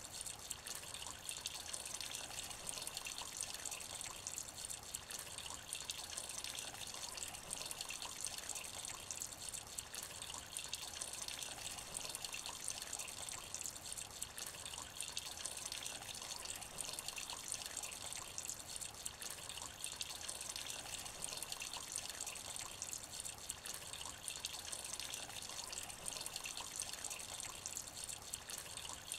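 Light rain falling into a puddle: a steady patter of many small drops splashing on the water, with no build or let-up.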